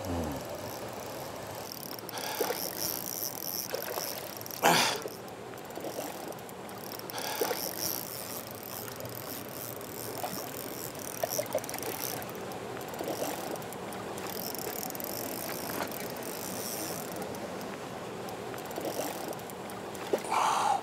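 A hooked trout splashing and thrashing at the surface of the pond during the fight, with the loudest splash about five seconds in. Between splashes there is the mechanical whirr and clicking of a Shimano Stella spinning reel being wound in.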